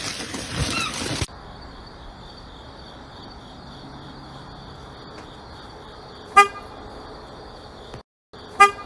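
Two short honks, about two seconds apart, over a steady high hiss.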